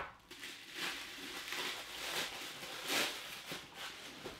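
Tissue paper rustling and crinkling as a mystery box is opened and its wrapping handled, in a series of soft swishes.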